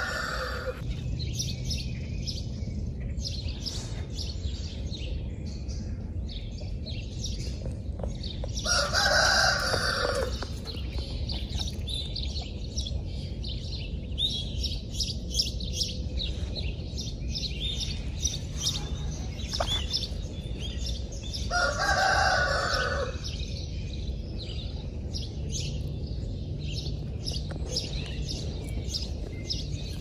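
A rooster crows three times, once at the very start, again about nine seconds in and again about twenty-two seconds in, each crow lasting about a second and a half. Between the crows there are scattered faint clicks and rustles over a steady low hum.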